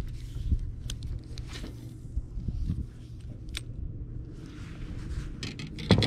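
Handling noise from a fishing rod and spinning reel on a boat: scattered light clicks and scrapes over a low steady rumble, with a sharp knock near the end as the rod is set down on the deck.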